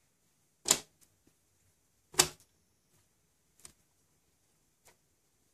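Sharp hard-plastic clicks as the clear acrylic lid of a chamber is handled: two loud clicks about a second and a half apart, then two faint ticks.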